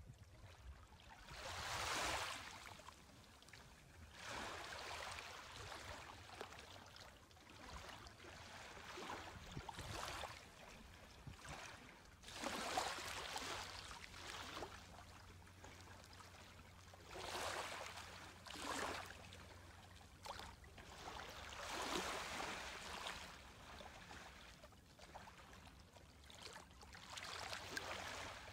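Small waves from a calm, glassy sea lapping onto a sandy beach: soft washes of water arriving every few seconds, each swelling and fading away.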